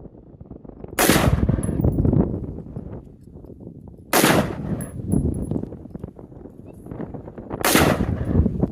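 AR-15 rifle fired three times, about three and a half seconds apart, each loud shot trailing off over about a second.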